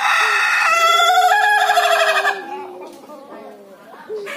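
A rooster crowing once, one long crow of about two and a half seconds that is the loudest sound, with a steady low tone running underneath.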